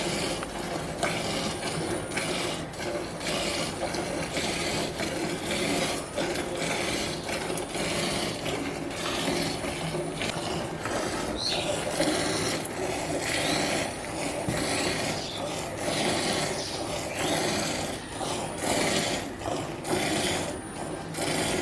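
A buffalo being milked by hand: rhythmic squirts of milk, each pull of the teats sending a hissing jet into the milk pail.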